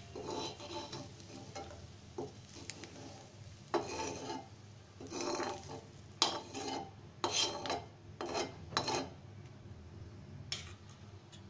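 A spatula scraping fried onion slices across a frying pan and lifting them out, in a run of scraping strokes with a few sharp knocks against the pan. The strokes stop about nine seconds in, once the pan is empty.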